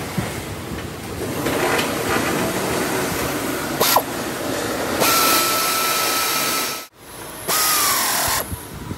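Factory workshop noise from metalworking machines and power tools, in several short cuts. A sharp knock comes about four seconds in, a steady high whine from about five seconds in, and a whine that falls in pitch near the end, like a tool spinning down.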